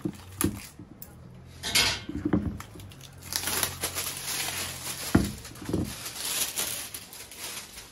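Clear plastic sheet crinkling as it is snipped with scissors and pulled out of a plastic flower pot, mostly in the second half. The pot knocks against wooden deck boards a few times, the loudest thump about five seconds in.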